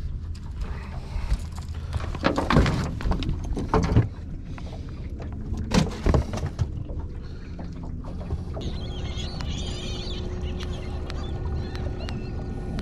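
Low, steady rumble of a small fishing boat on the water, broken by a few loud knocks or splashes in the first half. From about two-thirds of the way in, birds call repeatedly over a faint steady hum.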